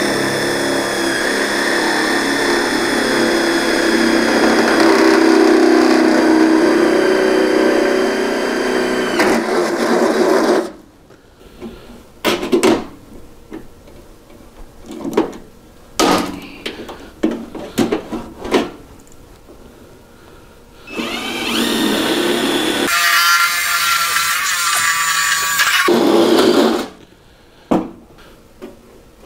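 Cordless drill boring through sheet metal to make holes for pop rivets: it runs steadily for about ten seconds, then scattered clicks and knocks, then it runs again for about five seconds near the end.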